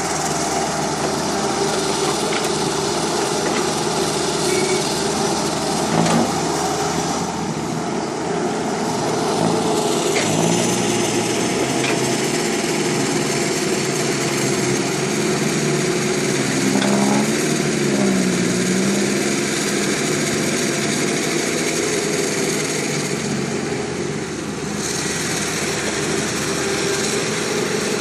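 Small electric motors and gears of radio-controlled toy construction vehicles whining steadily while they work in sand, the pitch rising and falling as the motors change speed partway through.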